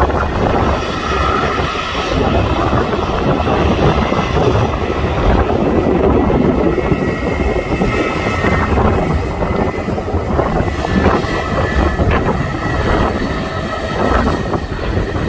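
Jet airliner engines running at close range, a loud steady noise with a faint high whine held through it, with some wind on the microphone.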